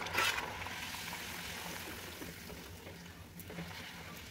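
A wheat-flour puri frying in hot oil: a burst of sizzling as it goes into the oil, then a steady sizzle as it puffs up.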